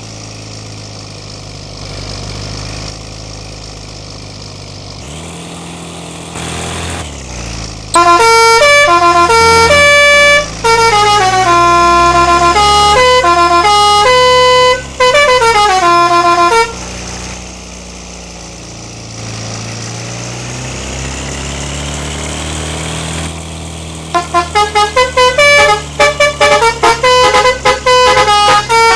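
Indonesian 'telolet' bus multi-tone air horn playing a melody of stepping notes for about eight seconds, over a steady engine hum. Near the end the horn returns in rapid, stuttering short notes.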